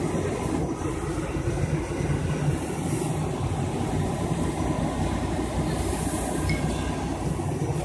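Fire apparatus diesel engine running steadily at high revs, a continuous heavy rumble as it drives the pump feeding the hose lines and the aerial ladder's water stream.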